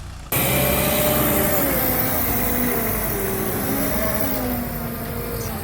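Heavy vehicle engine running under load, its pitch rising and falling as it revs; it starts abruptly about a third of a second in.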